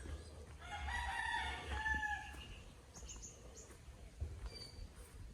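Rooster crowing once, one long call of about a second and a half, followed by a few faint high chirps.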